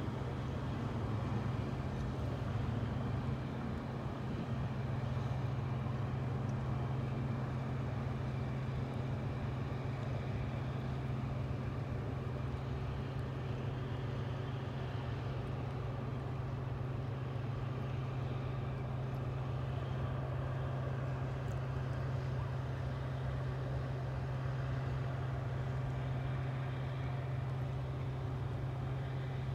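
Boat engine running steadily, heard from aboard as an even, low drone that neither rises nor falls.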